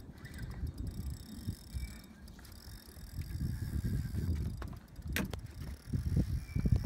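Spinning reel being cranked while a hooked striped bass is played, its mechanism ticking over a low, uneven wind rumble on the microphone, with one sharp click about five seconds in.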